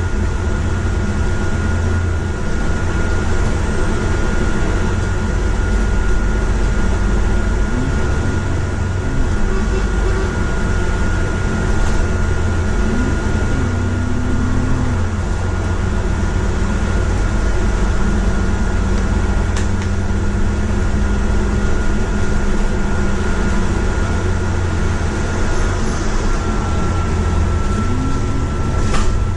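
Bus engine and drivetrain running steadily while the bus drives, heard from inside: a low rumble with a thin steady high whine, the engine note rising now and then. A sharp knock sounds about two-thirds of the way through and another near the end.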